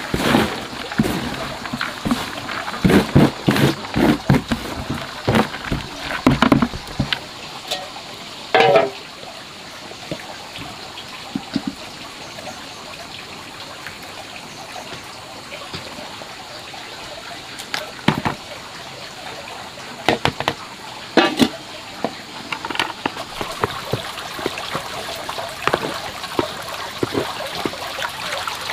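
Water trickling steadily, with a flurry of knocks and clatter in the first seven seconds and two short calls, one about nine seconds in and one about twenty-one seconds in.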